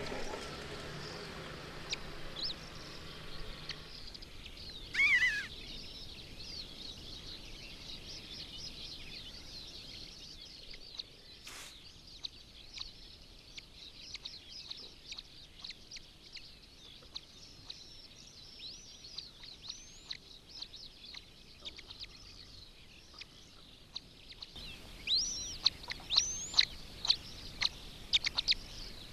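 Long-legged buzzard chicks calling at the nest: thin, high cheeps. A loud downward-sliding call comes about five seconds in, and a run of loud rising and falling calls near the end, with faint chirping throughout.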